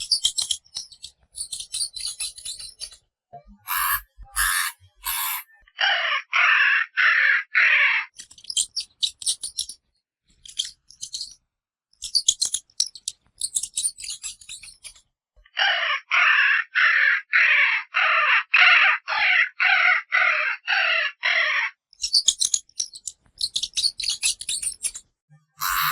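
Hamster squeaking in runs of short, evenly spaced calls, about two a second. Between the runs come bursts of high, scratchy rustling.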